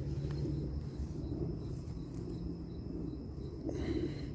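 Night insects, likely crickets, chirping faintly in a steady rhythm of about four pulses a second, over a low steady hum.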